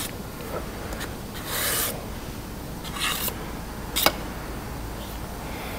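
A scraper scraping body filler out of its can and wiping it off against a spreader: a few short scrapes, the longest about one and a half seconds in, and a sharp tap about four seconds in.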